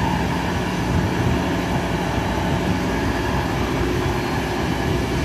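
Passenger train running at speed, heard from on board: a steady rumble of wheels on rail with a steady hum under it.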